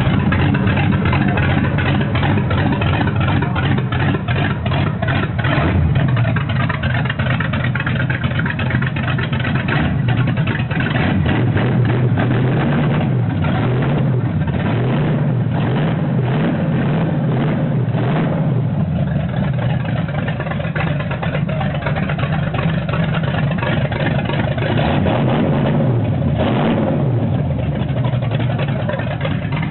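Dodge Charger R/T's V8 engine running and rumbling, revved up and down several times between stretches of steadier running.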